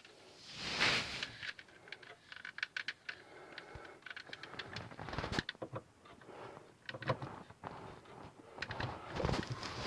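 Irregular clicks, taps and rustles of objects being handled, with a louder rustle about a second in. There is no steady alarm tone.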